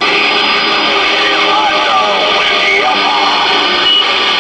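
Galaxy DX-979F CB radio receiving on sideband: loud band static coming up suddenly as the mic is released, with faint, garbled voices of distant skip stations warbling through the hiss.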